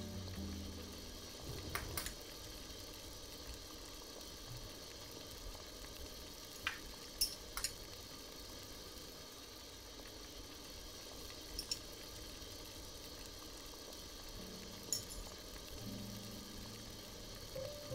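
A pot of seafood broth boiling hard, a steady bubbling hiss. A few light clinks of chopsticks and a spoon against a small ceramic bowl are heard, as chili seasoning is mixed and spooned in.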